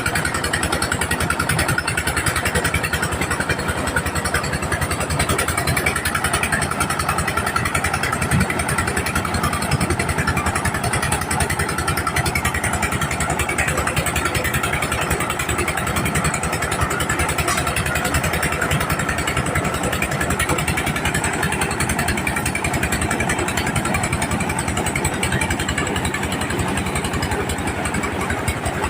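Engine-driven mobile corn sheller running steadily, its engine firing in a fast, even rhythm under a continuous mechanical din from the threshing machinery.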